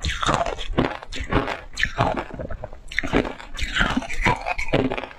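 Shaved ice crunched and chewed in big bites, close to the microphone: a rapid, irregular run of crisp crunches, several a second.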